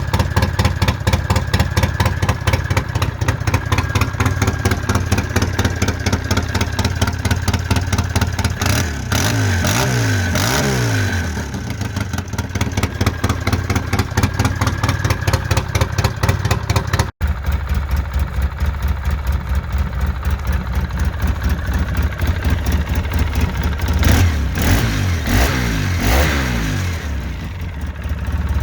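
Polaris Sportsman 700 ATV engine idling with a rapid, even exhaust pulse and revved briefly about a third of the way in, first with an exhaust leak adding a sharp, hissy edge to each pulse. After a sudden cut about halfway through it idles again with the leak repaired, sounding duller, and is revved a few times near the end.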